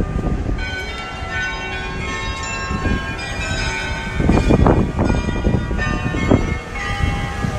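Church bells ringing a run of different notes, overlapping and sounding on, over a low street-noise haze. A louder low rumbling noise comes about four to five seconds in.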